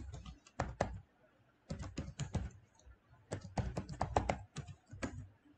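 Computer keyboard being typed on, keystrokes clicking in several short bursts with brief pauses between.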